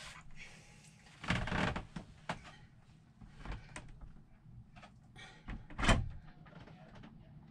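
Hands handling small plastic tank-level sensors against the side of a plastic holding tank: scattered rustles and light knocks, the loudest knock about six seconds in.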